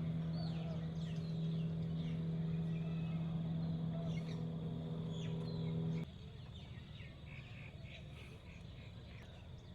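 Small birds chirping and calling over a steady engine hum; the hum stops abruptly about six seconds in, leaving the birds and a faint outdoor background.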